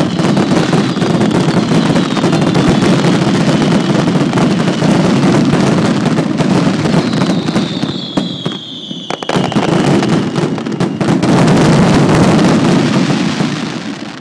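Fireworks going off in a dense, continuous crackle of pops over a steady rushing noise, with a falling whistle about halfway through; the din dips briefly, swells again and starts to fade near the end.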